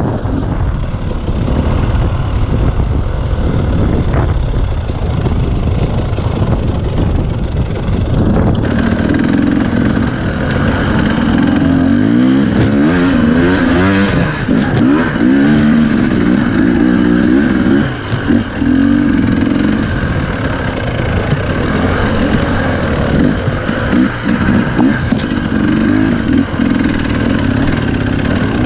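KTM 250 EXC two-stroke enduro bike running on a trail, its engine revving up and down as the throttle is worked. For the first several seconds a rough rushing noise, wind on the microphone, largely covers the engine.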